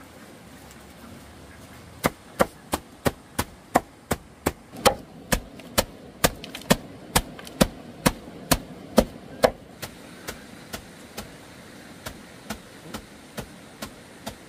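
Rhythmic chopping strokes, about two to three a second, sharp and even for several seconds, then lighter strokes near the end.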